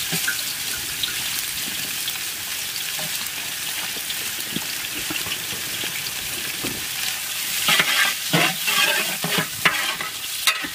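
Sliced onions and green chillies sizzling in hot oil in a large metal pot. About eight seconds in, a metal spatula starts stirring them, adding louder uneven scraping strokes over the sizzle.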